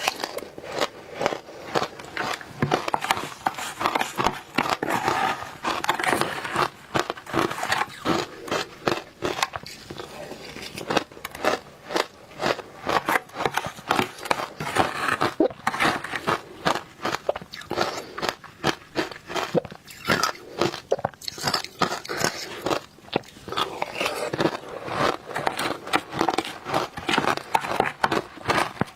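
Frozen matcha ice being bitten and chewed close to the microphone: a continuous run of crisp, powdery crunches.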